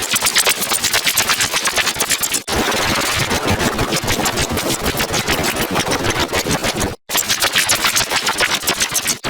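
Heavily distorted audio effect: a harsh noise pulsing rapidly and evenly, like an idling engine, broken by short dropouts about two and a half and seven seconds in.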